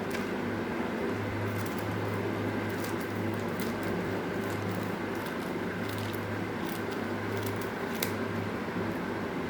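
Plastic courier bag being handled and opened, with scattered soft crackles of polythene, over a steady low hum of a fan or air conditioner.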